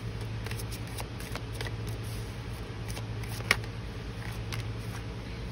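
A deck of tarot cards being shuffled by hand: a run of soft, irregular card clicks, with one sharper snap about three and a half seconds in, over a steady low hum.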